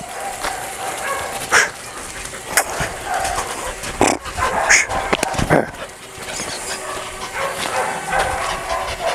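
Dog barking: several short, sharp barks spread over a few seconds, the loudest in the middle stretch.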